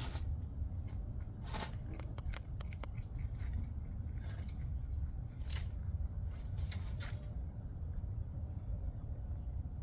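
Cottontail rabbits nibbling food, a dozen or so crisp, irregular snipping and crunching bites, over a steady low rumble.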